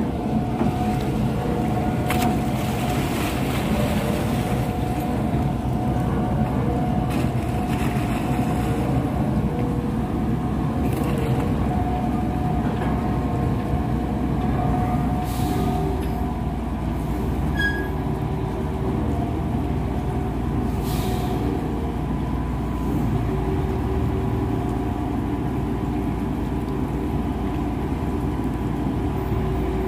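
Crane machinery of a grab dredger running steadily, a low rumble with a steady whine, as the clamshell grab is lowered on its wire ropes into the water.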